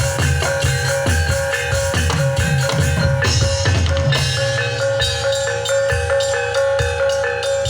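Javanese gamelan music accompanying a jatilan dance: drums beating a fast, even rhythm of about four strokes a second over ringing metallophone notes, with a brighter crash about three seconds in.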